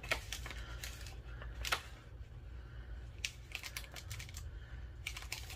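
Scattered light clicks and taps of paper and card being handled and pushed into place by hand, over a low steady hum.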